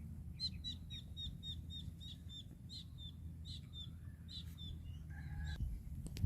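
A small bird calling a quick series of repeated short chirps, about four or five a second, stopping about five seconds in.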